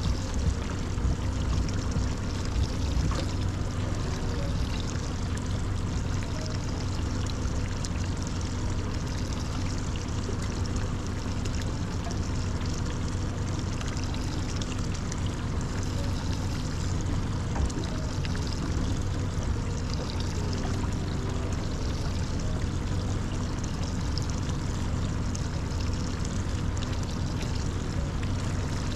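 Steady pouring, trickling water with a constant low hum beneath it.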